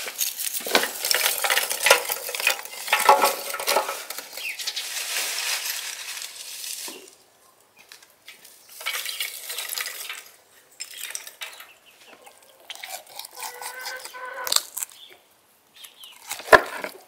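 Lumps of charcoal clattering and crunching as they are handled and set among wood in a metal grill, for the first several seconds. Later a hen clucks, and near the end there is a single sharp knock of a knife on a wooden cutting board.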